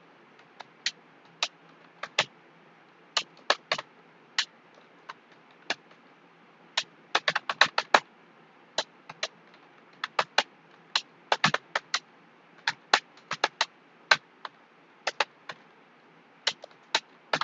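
Computer keyboard keys clicking as someone types, with uneven runs of keystrokes and short pauses between them.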